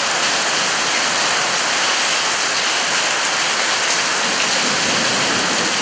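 Heavy rain falling steadily, splashing on a paved patio.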